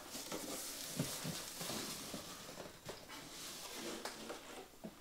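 Cardboard box flaps being lifted and folded back by hand: soft scraping and rustling of corrugated cardboard, with a couple of light ticks.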